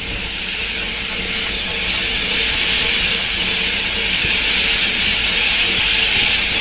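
Steam hissing steadily from the paddle steamer P.S. Marion, building up over the first couple of seconds and then holding, over a faint low steady hum.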